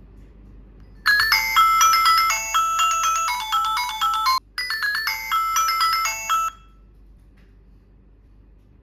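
Tuya Wi-Fi smart siren playing one of its melody alarm tones: an electronic ringtone-like tune of stepped notes that starts about a second in, breaks off briefly past the middle, and stops after about five seconds.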